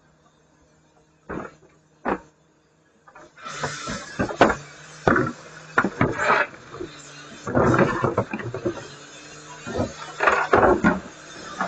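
Garbage truck collecting yard waste. A steady low hum runs under two sharp knocks, then, from about three seconds in, a series of noisy bursts and knocks as the waste is handled and loaded.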